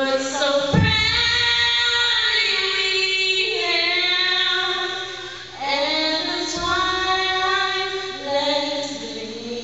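A young woman singing solo and unaccompanied into a microphone over a public-address system, holding long notes and gliding between them. Two low thumps come through, about a second in and again past the middle.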